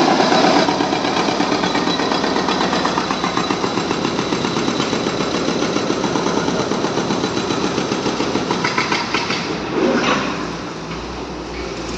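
John Deere excavator's diesel engine running steadily with a rapid, even pulsing. About ten seconds in there is a brief louder burst of noise, after which it runs a little quieter.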